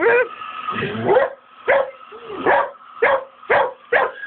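A dog barking over and over at a running hairdryer, around eight short barks, some swooping up and down in pitch like yelps. The hairdryer's steady whine sits faintly underneath.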